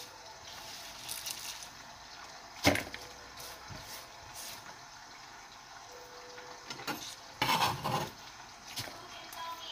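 Kitchen knife work on a wooden cutting board: a single sharp knock about a third of the way in, then a knife slicing through a bunch of green onions onto the board about three-quarters through.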